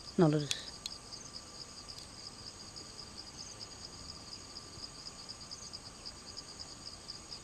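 A steady, fast-pulsing high trill of crickets runs throughout. Just after the start there is a short vocal note falling in pitch.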